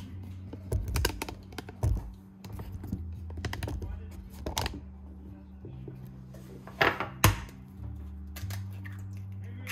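Quick knocks and clicks of kitchen utensils and dishes being handled in a hurry, over a low steady hum; the sharpest knocks come about a second in, near the middle, and about seven seconds in.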